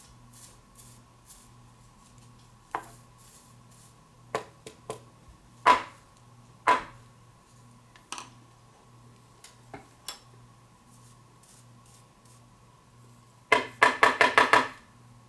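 Scattered sharp metallic taps and clicks of soldering tools being handled on a workbench, then a quick run of about eight taps near the end, over a faint steady hum.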